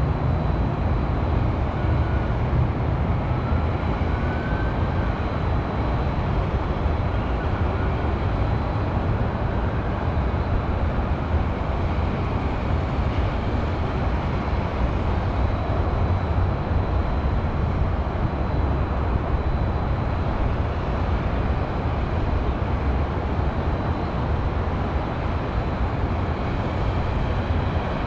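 Steady hum of highway traffic, heaviest in the low rumble, holding at an even level throughout.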